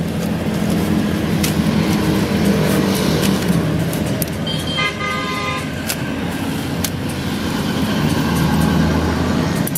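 Motor traffic running steadily, with a vehicle horn sounding for about a second midway. Light clicks of bamboo sticks being handled come through.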